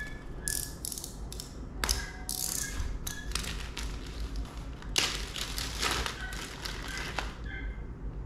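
Thin plastic packaging bag crinkling as it is handled and opened, in several bursts, the longest starting about five seconds in.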